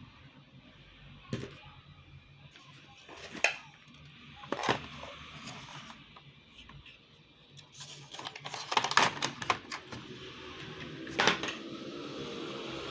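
Scattered clicks and light clatter of small hard laptop parts and tools being handled during a repair, with a dense run of clicks about eight to ten seconds in.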